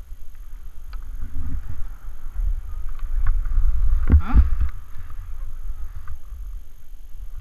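Wind buffeting an action camera's microphone during a downhill ski run, a heavy low rumble over the hiss of skis sliding and scraping across packed snow. A few sharp clicks come through, and the rush is loudest about four seconds in.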